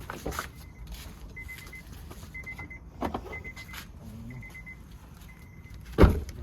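A high electronic beep repeating about once a second, each beep a quick run of short pips. A few sharp knocks come about three seconds in, and a loud sharp knock comes near the end.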